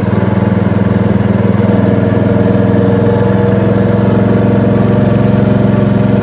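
Small boat engine running steadily under way, a constant low drone that does not change.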